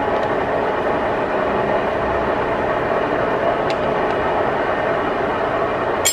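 Steady running noise of belt-driven line-shaft shop machinery powered by a steam engine. A faint tick comes about halfway through, and a sharp metallic clink right at the end.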